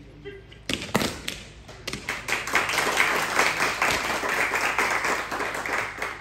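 Crowd clapping: a few separate claps, then about two seconds in a steady, loud round of applause.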